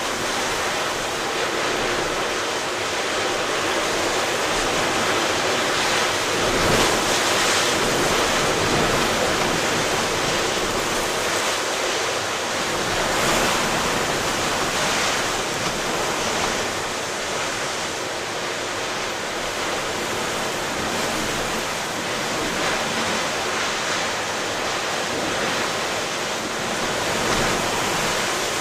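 Stormy ocean surf: rough waves breaking continuously in strong wind. A steady wash of noise swells louder as bigger waves break, about seven and thirteen seconds in.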